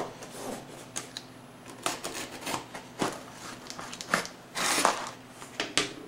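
Utility knife blade cutting along the taped seam of a small cardboard box, heard as a series of short scrapes and clicks. Cardboard flaps scrape and rustle as the box is opened, with a longer scraping stretch a little before five seconds in.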